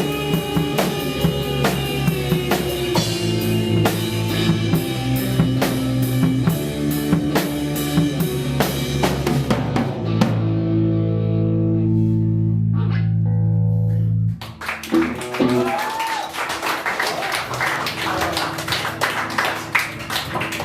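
Live grunge band playing with drum kit and electric guitar. The drums drop out and the band holds a final chord, which cuts off abruptly about two-thirds of the way through. The crowd then cheers and claps.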